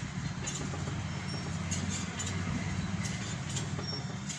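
Marker pen scratching and squeaking in short strokes on a whiteboard as words are written, over a steady low background rumble.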